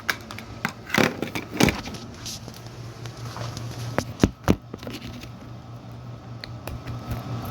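Scattered clicks and knocks of hands working the RC boat's plugs and wiring, with a steady low hum underneath that grows a little stronger about halfway through.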